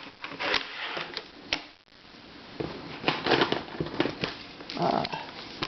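Hard plastic puzzles clicking and clattering in irregular short bursts as they are handled and moved on a shelf.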